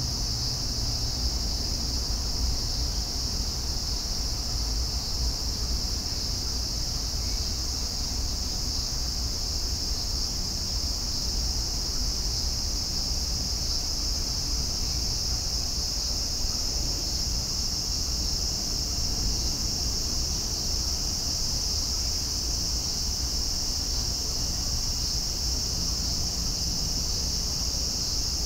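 Steady, high-pitched chorus of insects, an unbroken shrill drone that does not change, with a low rumble underneath.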